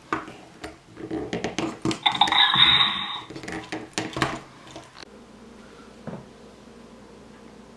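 Plastic toy action figures clattering and knocking against a wooden table in a quick run of clicks and thumps, with a brief hiss about two seconds in. About five seconds in, the knocking stops and only a quiet steady hum remains.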